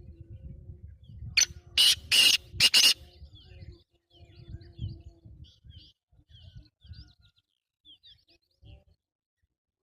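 Black francolin calling: a loud, harsh call of four notes in quick succession about a second and a half in, with faint twittering of small birds and a low rumble throughout.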